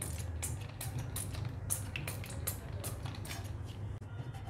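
Hand-pumped oil sprayer spritzing cooking oil onto a nonstick frying pan: a quick run of short hissing sprays, about three a second.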